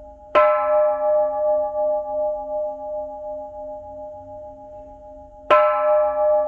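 Japanese temple bell struck twice with a wooden mallet, about five seconds apart. Each strike gives a sharp clang that settles into a long, deep ring that wavers as it fades, with the first strike still ringing when the second lands.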